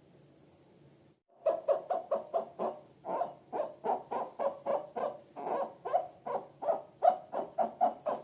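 Slime being squeezed and kneaded, giving a quick, even run of short wet squelching pops, about four or five a second, starting about a second in.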